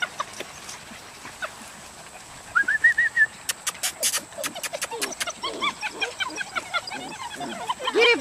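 Dutch Shepherd puppies yipping as they tug and bite at a rag toy. The short, high yips come more and more often toward the end, and a run of sharp clicks and snaps sounds about halfway through.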